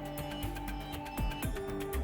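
Background music with a steady beat: held synth notes over regular drum ticks.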